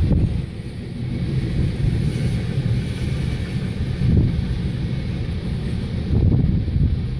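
CN freight train of tank cars rolling past, a steady low rumble that swells a few times, heard from inside a waiting car.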